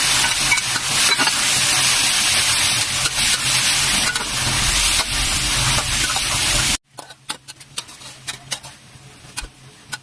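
Eggplant and pork frying in a hot pan while being stirred, a loud steady sizzle. It cuts off abruptly about seven seconds in, leaving scattered light clicks and taps.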